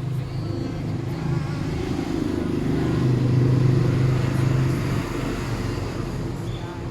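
Hot air rework station blowing: a steady hum and rush of air, louder towards the middle, as it heats a shorted voltage-regulator chip to desolder it from the board.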